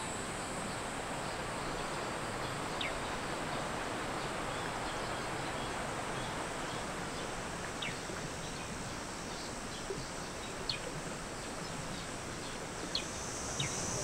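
Forest ambience: a steady rushing background with a few short, high, falling bird chirps scattered through it, and a faint high insect drone that grows a little stronger near the end.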